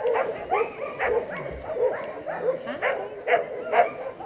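A team of harnessed sled dogs barking and yipping, many short overlapping barks from several dogs at once, several a second.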